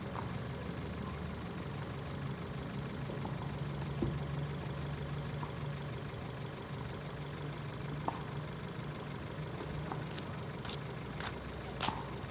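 Ford Fiesta's engine idling steadily, with a few short clicks near the end.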